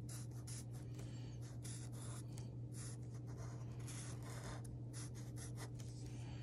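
Sharpie fine-point marker drawing on paper: a run of short, irregular strokes of the felt tip, over a steady low hum.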